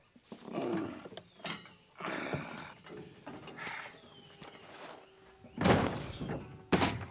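A heavy rock scraped and shifted over dirt and concrete by hand, in several rough bursts, with two heavy thumps near the end.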